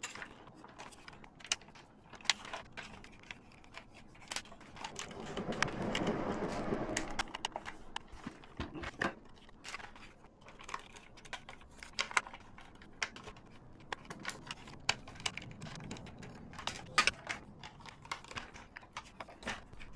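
Scattered small clicks and taps of screws, a tool and plastic parts being handled as a small RC car is taken apart. About five seconds in, a louder stretch of rubbing noise swells up for two seconds or so.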